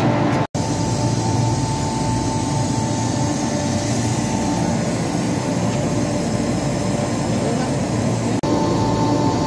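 Steady machinery drone with a constant whine running through it. It cuts out for a moment about half a second in and again near the end.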